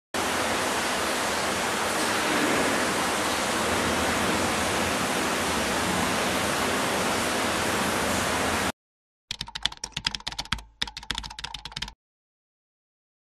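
A steady, even hiss that stops suddenly, then after a short gap a rapid run of sharp clicks like typing on a computer keyboard, lasting about two and a half seconds with a brief pause midway.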